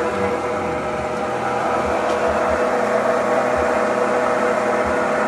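Citizen F16 sliding-headstock (Swiss-type) CNC lathe running: a steady mechanical hum with a few steady tones.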